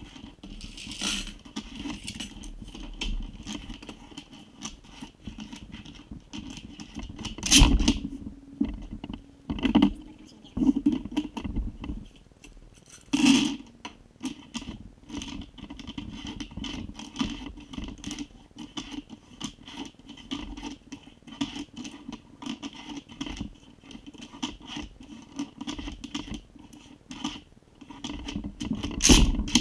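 Loose brass rifle cartridges clinking and rattling as they are shaken and swept across a wooden magazine speed-loader tray and pushed into line, with scraping and a few louder knocks.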